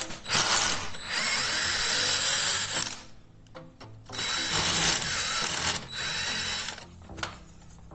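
Electric drill-driver running in two long runs of about two and a half and one and a half seconds, then a shorter one, undoing fasteners to free the spindle of a gate operator.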